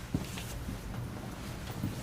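Inside a Kintetsu 2430 series train car standing at a station with its doors open: a steady low hum from the car's equipment, with a few faint knocks and clicks.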